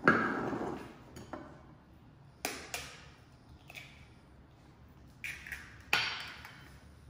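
Eggs being cracked open with a fork over a glass bowl: a series of sharp taps and clinks with a short ring, the loudest at the very start and another strong one near the end.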